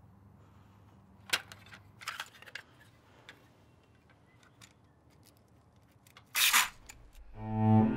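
Sharp crackling and tearing sounds of a cassette tape being destroyed, a few scattered snaps, then a louder noisy burst of about half a second near the end. A slow cello melody comes in just after.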